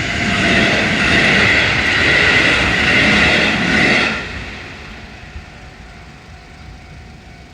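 A Keihan Katano Line electric train passing close by at a level crossing, its wheels on the rails loud. The sound cuts off sharply about four seconds in as the train clears, leaving a much quieter background.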